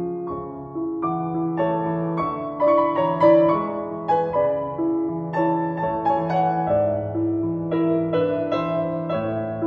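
Piano music: single notes and chords struck at an unhurried pace, each ringing and fading into the next.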